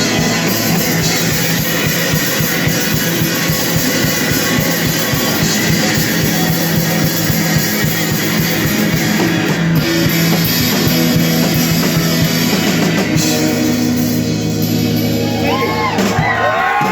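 Live rock band playing loud, with a drum kit and distorted electric guitars. Toward the end the band holds a ringing chord while high guitar tones bend up and down over it.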